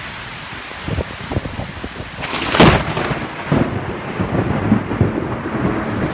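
Heavy rain hissing during a thunderstorm, then a loud thunderclap about two and a half seconds in, followed by rumbling.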